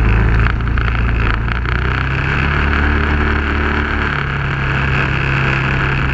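Off-road vehicle engine running steadily while driving, its note shifting about half a second in and again about four seconds in, over a steady hiss of wind and tyres.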